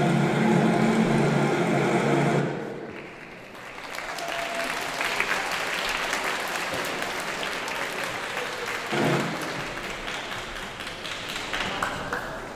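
The last seconds of music end about two and a half seconds in, followed by audience applause.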